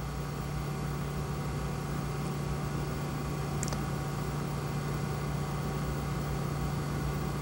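Steady low machine hum with an even hiss, and a faint click about three and a half seconds in.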